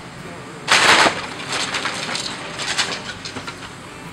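Excavator tearing into a wood-frame house: a loud crash of splintering wood and siding about a second in, then a couple of seconds of crackling and clattering debris over the excavator's running engine.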